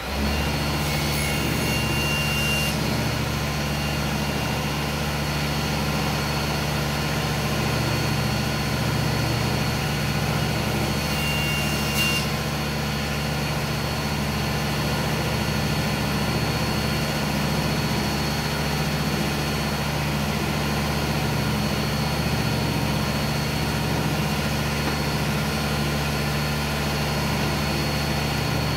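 Woodshop machine motor running steadily with a constant low hum. A brief click comes about twelve seconds in.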